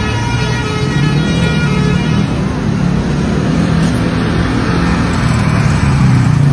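A bus's multi-tone Basuri telolet horn sounds its musical notes, which fade out within the first couple of seconds. After that, the bus's engine runs under load and grows louder near the end.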